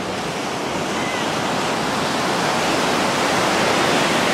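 Ocean surf breaking and washing up onto the sand, a steady rush that swells louder toward the end as a wave breaks close to shore.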